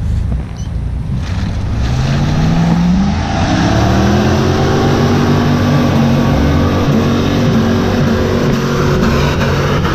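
Jeep Grand Cherokee engine revving hard as the SUV climbs a slippery mud track, its tyres churning in the mud. The revs climb from about two seconds in and are held high to the end.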